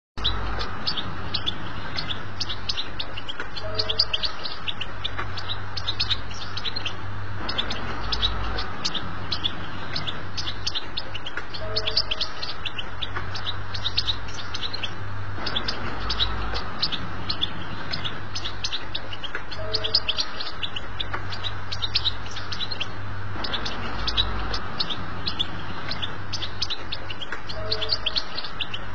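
European goldfinch song: a fast, unbroken twittering of high chirps and trills, the same passage repeating about every eight seconds over a low steady hum. This is a tutor song for teaching young goldfinches to sing.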